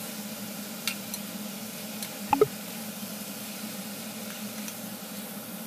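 A spoon stirring green beans and masala in a metal pressure cooker over low sizzling, with a few light clicks of the spoon against the pot.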